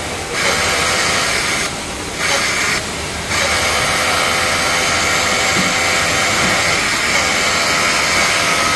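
Industrial overlock machine (Juki MO-6700 series) running as it sews a hem, in stop-start bursts over the first three seconds, then running steadily from about three seconds in.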